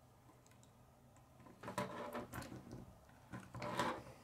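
Plastic K'nex pieces clicking and rattling as they are handled and fitted onto the build, in two short spells of clatter: one about two seconds in and one near the end.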